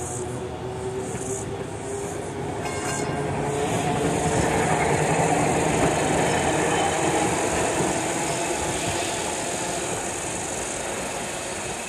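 Vintage electric tram running along the rails, the sound swelling toward the middle and easing off again, with a faint rising whine in the first couple of seconds. A steady high insect chorus runs underneath.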